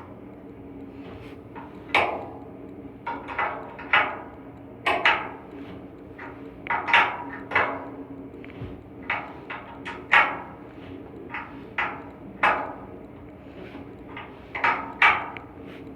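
Hand tools knocking and clinking on metal at irregular intervals, some strikes ringing briefly, as work goes on at an air handling unit's blower during a V-belt change. A steady low hum runs underneath.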